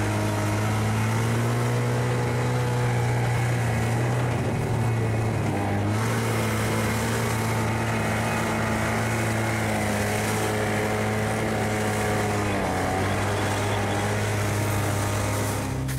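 Snowmobile engine running steadily under way, heard from on board, with the pitch easing briefly about six seconds in and again near the end.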